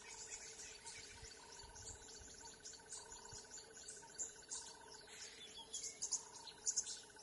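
Wild birds chirping over a steady, pulsing insect trill, like a cricket. The trill breaks off briefly about five seconds in, then resumes.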